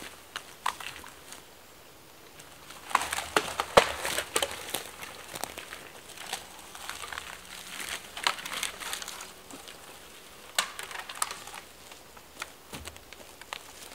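Dry twigs and brush crackling and snapping as a dead pine pole is hauled through the undergrowth, with footsteps on the dry forest floor. The cracks come irregularly, thickest about three to five seconds in and again near eight and eleven seconds.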